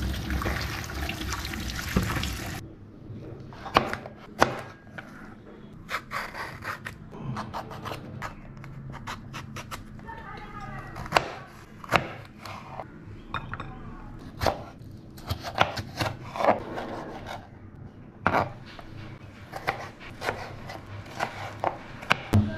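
Tap water running over vegetables in a plastic colander for about two and a half seconds. Then a kitchen knife cuts through pointed gourd and tomato onto a plastic cutting board, in sharp, uneven knocks.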